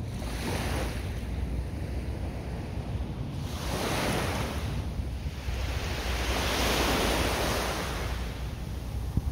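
Small ocean waves breaking and washing up the beach, the surf swelling and fading in three washes, the last the longest. A steady low rumble of wind on the microphone runs under it.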